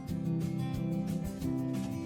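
Background music with strummed guitar and a regular beat.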